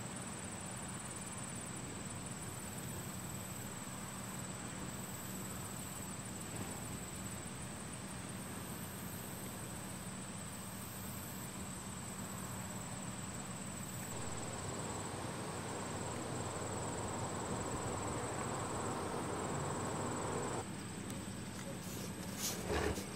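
Summer outdoor ambience: insects trilling in a steady, unbroken high-pitched drone over a faint low hum, with a louder stretch of mid-pitched noise for several seconds past the middle and a few sharp clicks near the end.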